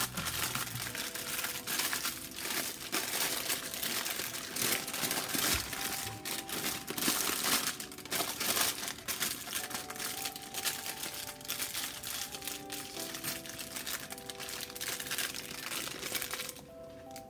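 Thin plastic bag crinkling and rustling continuously as hands wrap food in it, with many sharp crackles; it dies down just before the end.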